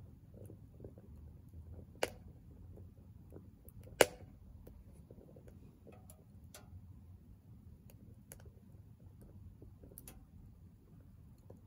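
Firewood crackling in a Soomloom MECA mini wood stove: scattered sharp pops and ticks, with two louder pops about two and four seconds in, over a faint low rumble.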